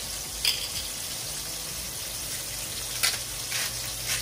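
Shrimp frying in garlic and melted butter in a nonstick pan: a steady sizzle, with a few short clicks about half a second in and again around three seconds in.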